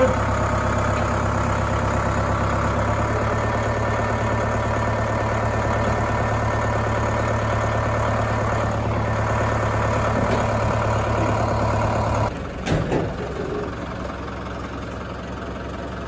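Ford farm tractor engine idling steadily. The running sound stops abruptly about twelve seconds in, followed by a couple of short knocks.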